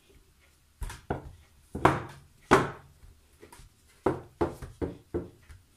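About a dozen short, irregular knocks and thumps on a marble kitchen counter while paratha dough is folded by hand, starting about a second in, with the two loudest close together a couple of seconds in.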